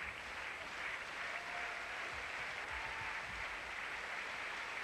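Stadium crowd applauding steadily: an even wash of many hands clapping.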